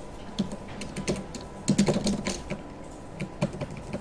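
Typing on a computer keyboard: irregular keystrokes, with a quick run of louder keys near the middle.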